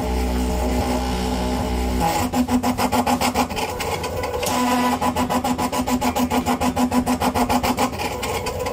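Stepper motor of a homemade Arduino sentry turret driving the gear that swings its ultrasonic distance sensor round. It sets in about two seconds in as a fast, even pulsing with a pitched hum that comes and goes: the turret has detected the lighter and is turning toward it.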